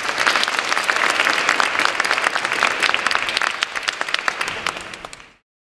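Audience and panel applauding, dying down over the last couple of seconds and then cutting off abruptly about five seconds in.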